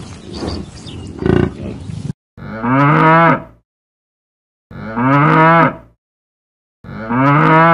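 A cow mooing three times, the same long call repeated about every two seconds with silence in between. Before the moos, the first two seconds hold a harsh noisy sound with a brief louder call just over a second in.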